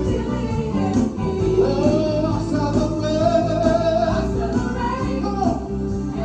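Upbeat gospel praise song from a live band with singing; near the middle a single sung note is held for a couple of seconds over a steady bass line.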